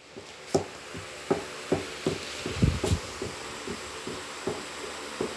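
Footsteps on a tiled floor, an even beat of about two to three soft knocks a second, with a louder low bump about halfway through.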